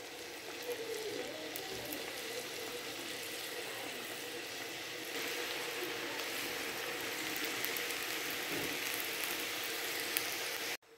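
Samosas deep-frying in hot oil in a metal karahi: a steady sizzling and bubbling that grows louder about five seconds in as more samosas are lowered into the oil, then cuts off suddenly just before the end.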